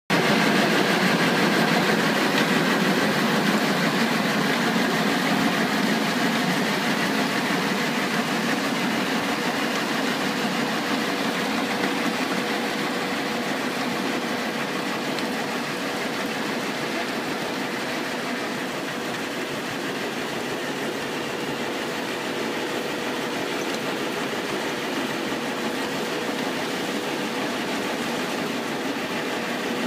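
A 4 m self-propelled compost turner running steadily as it works through a compost windrow: its engine and turning drum make a dense, even mechanical roar with a steady hum running through it, easing a little over the first half.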